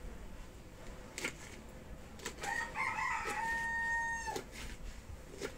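A rooster crows once, starting about two and a half seconds in: a broken opening, then a long held note of nearly two seconds. A knife knocks a few times on a wooden chopping board as cabbage is cut.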